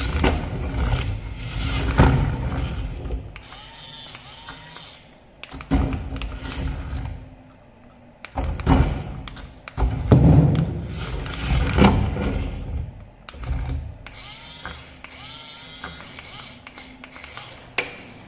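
Battery-powered 1:18 scale toy RC car being driven, with short whirring runs of its small electric motor amid irregular thuds and knocks.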